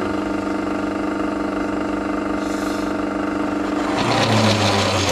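Belt-driven motor of a SIP F2820 floor-standing pillar drill running steadily with an annular cutter spinning in the chuck. About four seconds in, a hiss of aerosol cutting fluid sprayed at the cutter and a deeper hum join.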